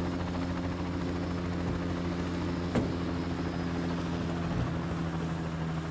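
An engine running steadily, a constant low drone with no change in pitch, with one sharp knock about halfway through.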